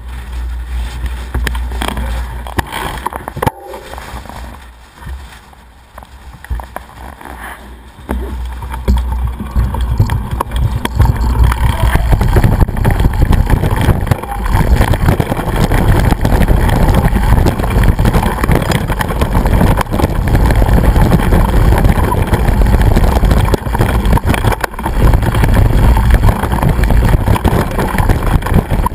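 Wind buffeting the microphone of a bike-mounted action camera, with the mountain bike rattling over a rough hill track. It is quieter at first, with a single knock about three and a half seconds in, and becomes a loud, steady rumble from about eight seconds in, once the descent gets going.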